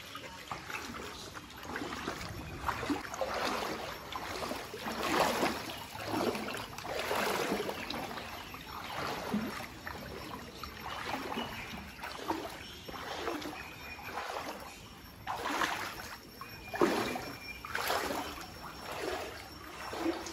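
Footsteps wading through floodwater, a splashing swish with each stride, about one step a second.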